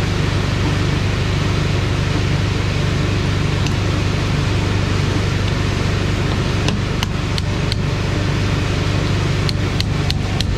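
Cutoff wheel grinding steadily through the steel inner race of a semi truck driveshaft's carrier bearing, with a scatter of sharp metallic knocks in the second half.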